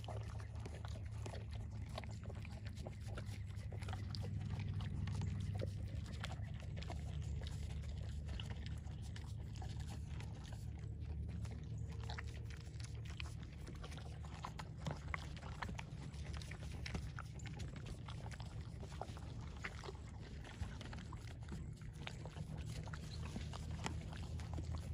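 A horse chewing and crunching sweet feed from a concrete trough, with many small irregular crunches and clicks over a steady low rumble.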